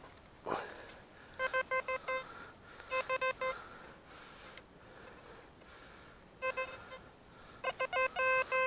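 A metal detector beeping in four quick runs of short tones, all at the same pitch, each run signalling buried metal targets in the beach ground. A brief rustle comes about half a second in.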